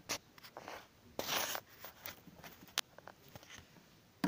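Handling noises: a few light clicks, a brief scraping rustle a little over a second in, and a sharp click near three seconds.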